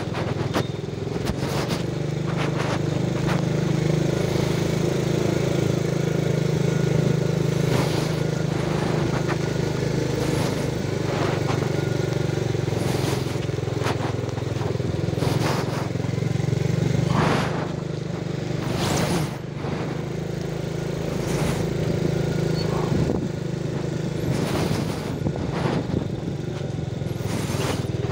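Motorcycle engine running steadily on the move, with wind and road noise and frequent short knocks and rattles.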